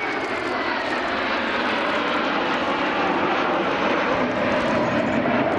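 A formation of Kawasaki T-4 jet trainers flying over with a steady jet roar. A whine in it falls in pitch as the aircraft pass.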